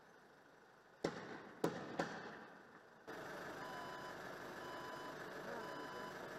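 Three sharp bangs a second or so in, each trailing off in an echo: the kind of report that tear-gas or stun-grenade launchers make. About three seconds in the sound cuts to steady street noise with a vehicle's reversing alarm beeping about once a second.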